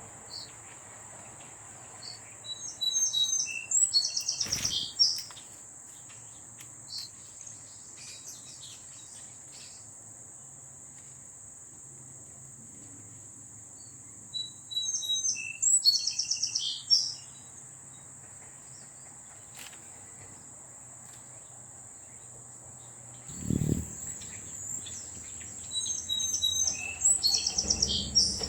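A songbird sings the same short song three times, each time a few opening notes and then a fast trill, over a steady high insect drone. A short low thump sounds once, late on.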